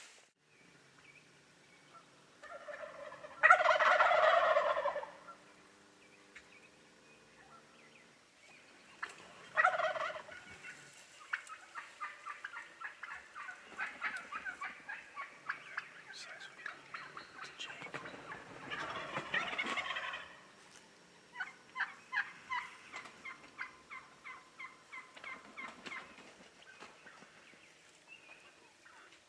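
Wild turkeys gobbling from the roost: three loud, rattling gobbles, the first about four seconds in and the loudest, then others near ten and nineteen seconds. Between them come long runs of quick, short calls.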